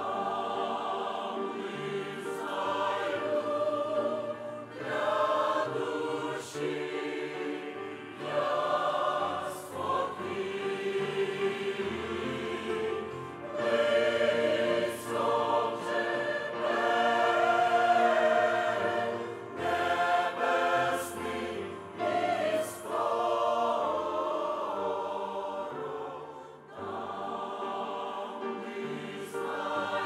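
Large mixed choir of men's and women's voices singing a slow Ukrainian hymn in sustained chords, phrase after phrase with short breaths between them.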